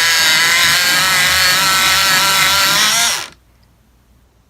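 Electric pencil sharpener running as it sharpens a pencil, a steady motor whine with grinding, then winding down and stopping about three seconds in.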